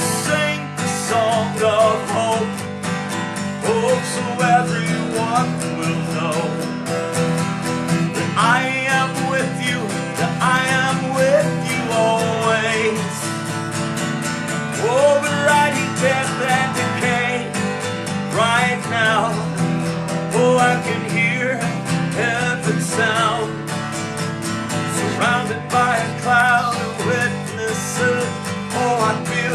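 Worship music: an acoustic guitar strums steady chords under a wordless melody line that swoops and slides in pitch.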